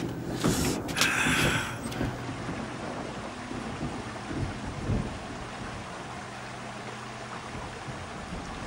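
Film sound effect of a rainstorm: a steady hiss of rain with low rumbles of thunder, the loudest about a second in and again about five seconds in.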